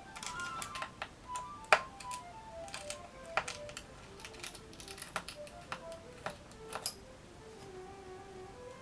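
Background music, a simple melody of held notes stepping up and down, over scattered sharp clicks from a screwdriver and small screws being taken out of a laptop's hard drive bay. The loudest click comes a little under two seconds in.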